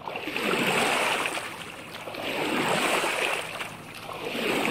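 Rushing noise that swells and fades about every two seconds, like surf.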